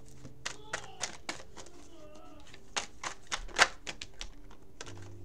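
Tarot cards being handled: a run of irregular sharp clicks and snaps, a dozen or more over a few seconds.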